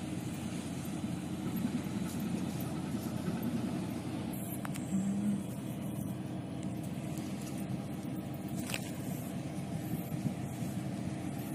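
Tanker Petro Ocean XI's engine running with a steady low rumble as the ship comes alongside the quay. A brief low hum rises out of it about five seconds in.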